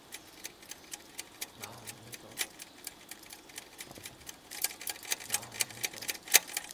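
Rapid ticking: about three to four sharp clicks a second, growing louder about two-thirds of the way in.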